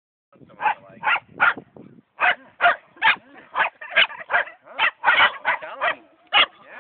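Shetland sheepdog (sheltie) barking: a quick string of about a dozen short, sharp barks, two to three a second, with a brief pause about two seconds in.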